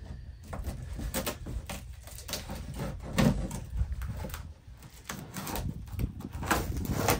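Utility knife slitting the packing tape on top of a cardboard box: a string of short scrapes and rips with small ticks, the cardboard crackling under the blade.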